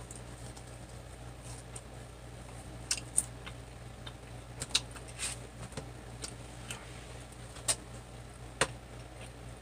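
Eating sounds at a table: scattered short clicks and smacks of chewing fried food and cutlery on a plate, over a steady low hum.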